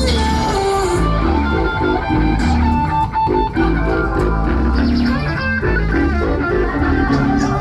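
Background music with guitar over a steady bass beat.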